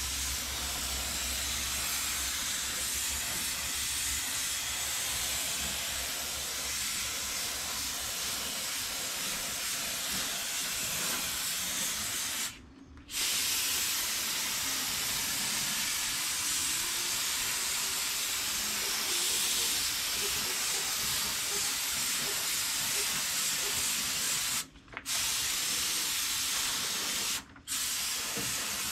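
Gravity-feed paint spray gun on compressed air, hissing steadily as it sprays clear coat. The hiss stops briefly three times as the trigger is let off: once a little before halfway, and twice close together near the end.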